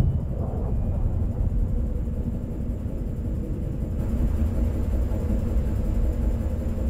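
Low, steady rumbling ambience with a faint steady hum above it, opening with a brief loud thud.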